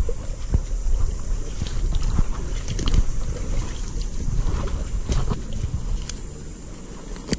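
Low rumble of wind and movement buffeting a body-worn camera's microphone, with scattered light clicks and rustles of leaves and brush through it.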